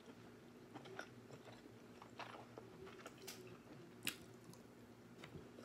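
A person chewing a bite of king crab leg meat close to the microphone: quiet, scattered mouth clicks and smacks, the sharpest a little after four seconds in.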